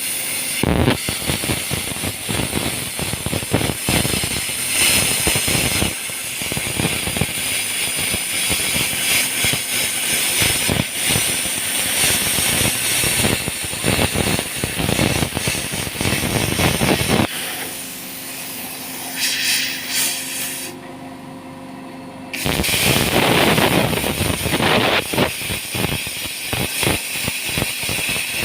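Gas cutting torch cutting through steel plate: a steady hiss with dense crackling of sparks and molten metal. The crackling breaks off for a few seconds about two-thirds of the way through, then starts again.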